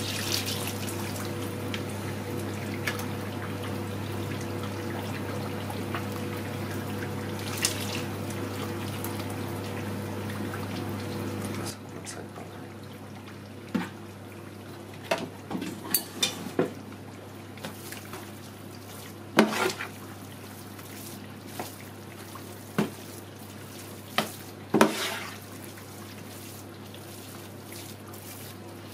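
Hot melted duck fat poured from a plastic jug onto ground duck meat in a plastic crate, over a steady hum. About twelve seconds in the hum drops away, and the fat-soaked meat is stirred with a utensil, giving scattered short knocks.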